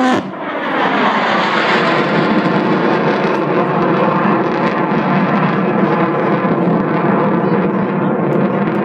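F-16 fighter jet passing overhead: a loud, steady jet-engine roar whose tone falls in pitch over the first couple of seconds as it goes by, then holds steady as it flies away.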